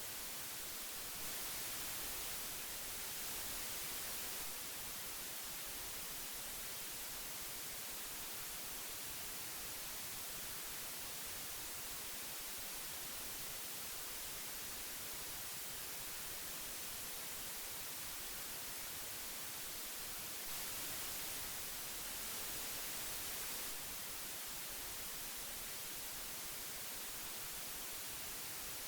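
Old tape hiss: a steady, even hiss weighted toward the high end, growing a little brighter and louder for about three seconds twice, about a second in and again about twenty seconds in.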